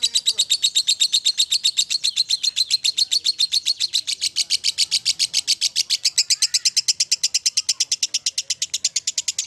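Lovebird giving its long 'ngekek' call: an unbroken, rapid chatter of sharp, high notes at about nine a second.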